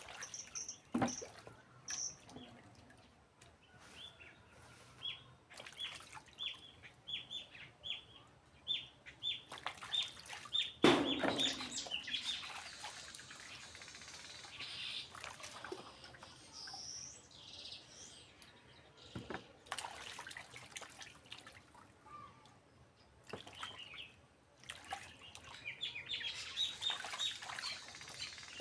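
Small birds chirping in quick runs of short high notes, with a few sharp knocks and water splashes from sweet potatoes being washed by hand, the loudest about 11 seconds in.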